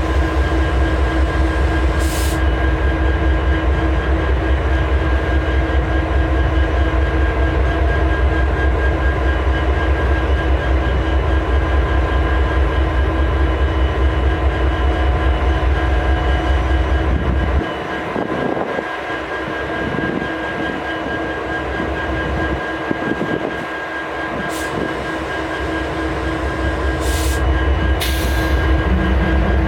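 Idling diesel-electric locomotives: the low drone of an EMD 710-G3B prime mover under several steady hums. A little past the middle the deep rumble drops away for a few seconds, then builds back near the end.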